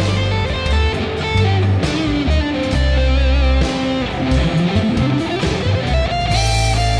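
Instrumental break of a ballad: a guitar plays the lead melody with wavering held notes and a long upward slide about four seconds in, over bass notes and drums.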